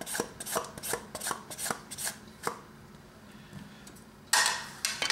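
Butternut squash being sliced on a small ceramic mandoline: about seven quick rasping strokes, roughly three a second, stopping about two and a half seconds in. Near the end there is a single loud scraping clatter, louder than the slicing.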